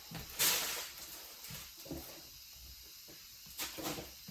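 Rustling of a diamond painting kit's packaging being handled and put away, with a loud swish about half a second in and a shorter one near the end.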